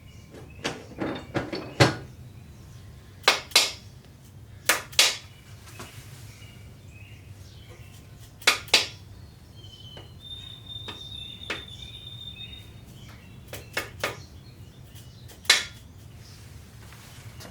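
Sharp metallic knocks, mostly in close pairs, from cast-iron main bearing caps being set on a 351 Windsor engine block and tapped down to seat them over the crankshaft. A brief high metallic ring comes about halfway through.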